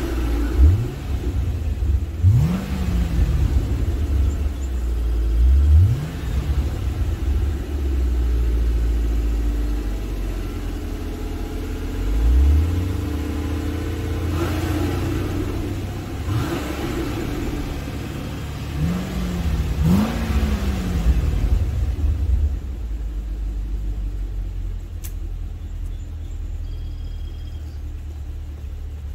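Hummer H3 Alpha's 5.3L V8 exhaust, the truck parked, revved in about seven quick blips over the first twenty seconds, each rev rising and falling back. It then settles to a steady idle.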